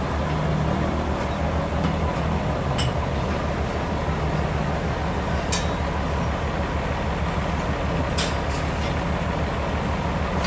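Heavy machinery running with a steady low drone, with sharp knocks about three, five and a half, and eight seconds in.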